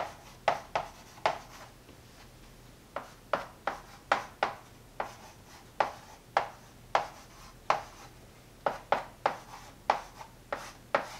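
Chalk writing on a blackboard: a run of short sharp taps and scratches as numbers and symbols are written. There are three strokes, then a pause of under two seconds about a second in, then a quicker run of strokes.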